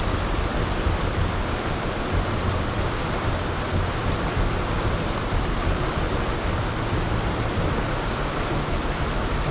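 Loud, steady rushing noise with an uneven low rumble beneath it, unbroken throughout.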